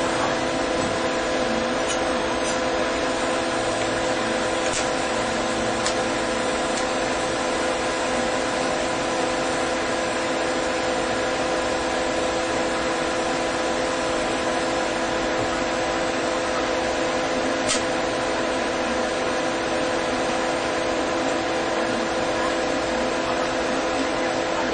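A TIG welding arc burning steadily: an even electrical hum of several fixed tones over a constant hiss, with a few faint clicks.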